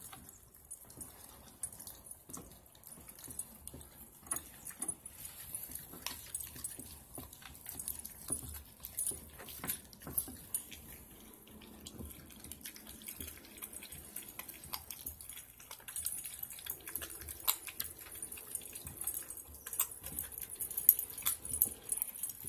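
Husky and malamute puppies gnawing frozen raw chicken drumsticks, bone and all: irregular small clicks and cracks of teeth on bone and meat, busier toward the end.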